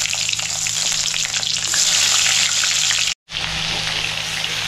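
Stuffed ridge gourd pieces sizzling hard in hot oil in a steel kadhai, just after being dropped in, and stirred toward the end. The sizzle is a steady hiss that cuts out for an instant about three seconds in.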